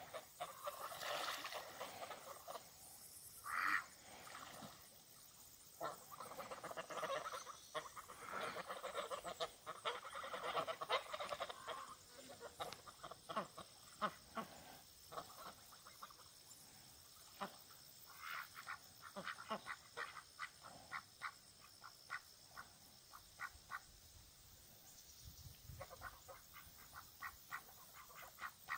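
A mixed flock of young Danish geese and Pekin ducks honking and quacking as they swim. The calls overlap thickly for the first dozen seconds, then come as runs of short, quick calls.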